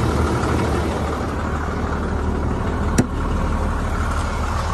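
Diesel pickup truck engine idling steadily after a cold-weather start, with a single sharp click about three seconds in.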